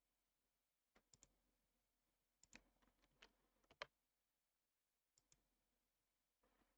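Faint clicking of a computer mouse and keyboard: a pair of clicks about a second in, a quick run of clicks around the middle, and another pair near the end.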